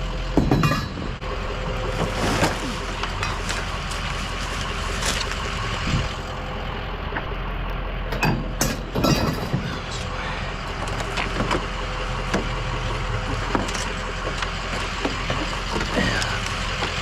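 Vehicle engine idling steadily, with scattered knocks and clanks of scrap being handled, a cluster of them about eight to nine seconds in.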